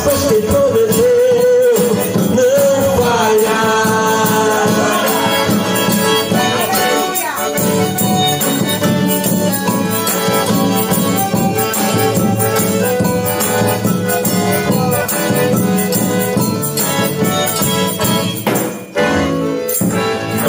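Live gospel band playing an instrumental passage between sung verses, with a steady high percussion rhythm over sustained melody. The music drops out briefly near the end.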